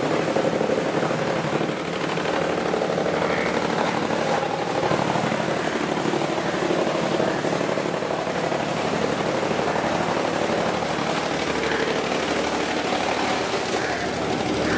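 Machinery running with a steady hum.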